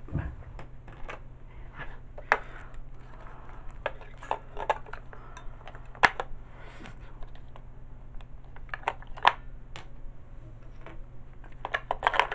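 AA batteries being pulled out of and pressed into the plastic battery compartment of a Fisher-Price Sing & Spin Pablo toy: scattered clicks and knocks, with a quick run of them near the end.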